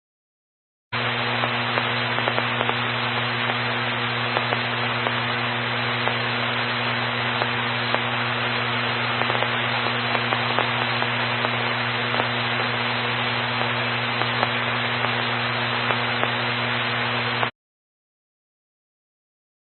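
Radio static with no program audio: a steady hiss with a low hum and scattered faint crackles. It starts abruptly about a second in and cuts off suddenly a couple of seconds before the end.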